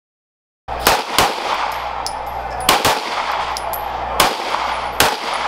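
Semi-automatic pistols fired on an outdoor range: about six sharp shots at uneven intervals, some in quick pairs, over steady background noise.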